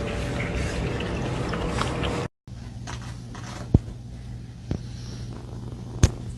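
A cat lapping water from a drinking glass, a dense run of wet laps that stops abruptly about two seconds in. A quieter stretch follows with three sharp taps spaced about a second apart.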